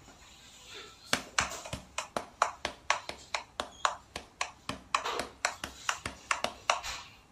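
Rapid run of light slaps, about four a second, as a cat's paws bat against a person's hand; it starts about a second in and stops shortly before the end.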